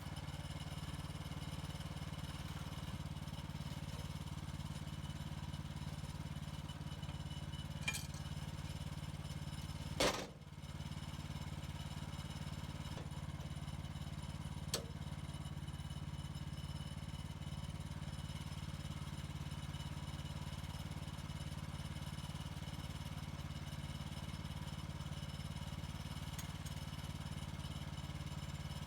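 Gas engine of an HM130 Max portable bandsaw mill running steadily during milling. One sharp knock comes about ten seconds in, with lighter clicks a couple of seconds before and after it.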